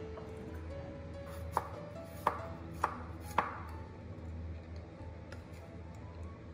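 Four knife chops on a cutting board, about two-thirds of a second apart, over a steady low hum.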